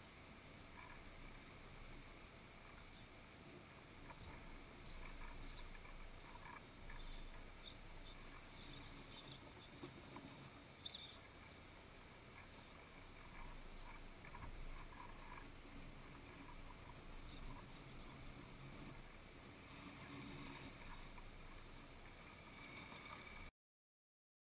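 Near silence: faint outdoor ambience, with scattered faint crackles and ticks a third of the way in as a scale RC crawler's tyres work over dry brush and stones. The sound cuts out abruptly near the end.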